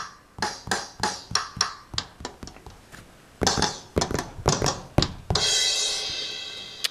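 GarageBand's Classic Studio Kit virtual drums on an iPad 2, played by tapping the touchscreen: evenly spaced single hits, about three a second, then a quick two-handed fill that ends on a cymbal crash ringing and fading over the last second and a half.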